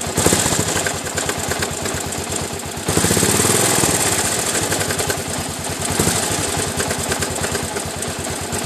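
Suzuki DR 800's big single-cylinder four-stroke engine running with a knocking noise from the engine, a fast even beat of pulses. The revs rise briefly at the start and again about three seconds in.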